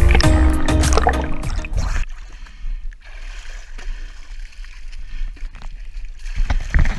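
Background music with a beat that ends about two seconds in, followed by soft water trickling and dripping off a wet object handled in gloved hands.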